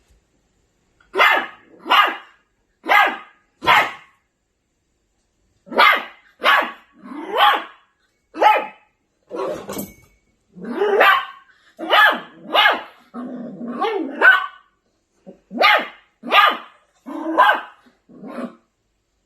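Maltipoo puppy barking repeatedly in short, high, sharp barks, often in quick pairs or runs with short pauses between. About two-thirds of the way through comes a lower, drawn-out growly stretch.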